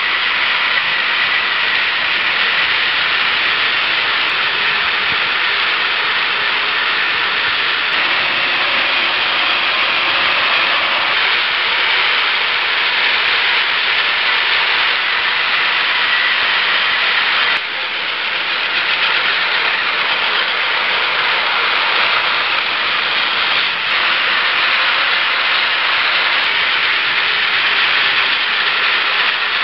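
Many Plarail battery-powered toy trains running at once on plastic track: a steady, loud whirring of their small electric motors and plastic gears.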